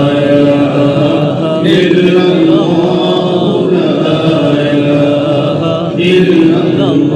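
A man's voice chanting a devotional Islamic naat in long, drawn-out notes that slide between pitches.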